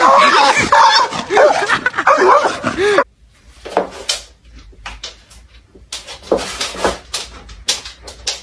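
A dog whining and yowling in loud, quickly rising and falling calls, which stop abruptly about three seconds in; after that, scattered short knocks and clatter.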